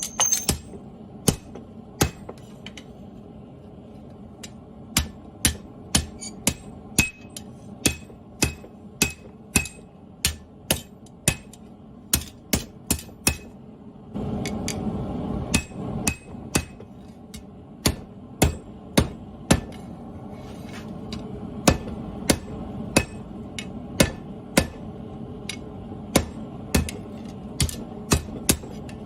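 Hammer blows on steel on an anvil, a run of single strikes about two a second, each with a short ring. The strikes pause briefly once. A steady noise underneath swells for a couple of seconds about halfway through.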